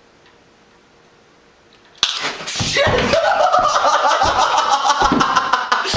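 A quiet stretch, then about two seconds in a sudden loud burst of a man's loud, continuous laughter.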